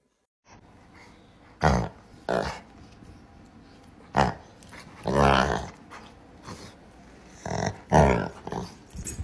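A dog lying on its back on a couch, growling playfully in a string of short bursts, with one longer drawn-out growl about five seconds in.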